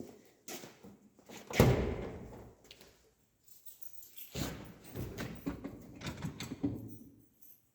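A car door shuts with a single heavy thud about one and a half seconds in, followed a few seconds later by a stretch of irregular knocks and rattles.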